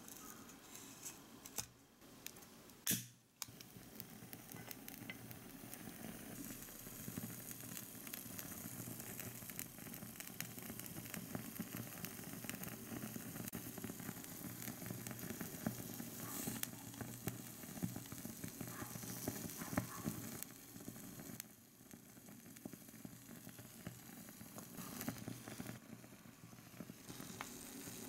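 A miniature solid-fuel burner is lit with a short, sharp burst of noise about three seconds in. The burning fuel tablet then gives a steady, faint hiss with small crackles under a tiny pan.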